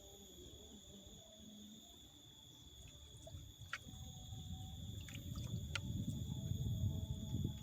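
Steady high-pitched insect drone, with a low rumble that builds and grows louder from about three seconds in, broken by a few faint clicks.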